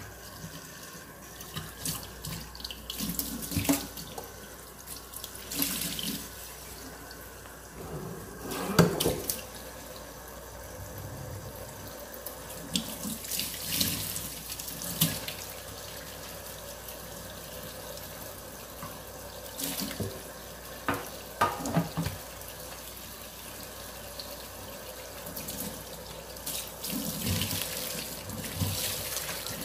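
Water running at a sink, with irregular knocks and splashes scattered through it; the loudest come about a third of the way in and again about two thirds in.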